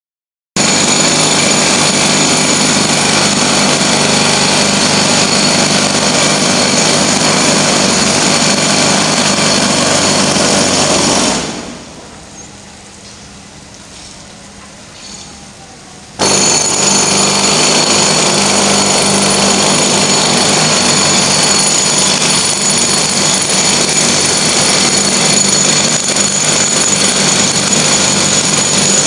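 Loud, steady machine noise with several high, steady whining tones running through it. It dies away about eleven seconds in and cuts back in suddenly about five seconds later.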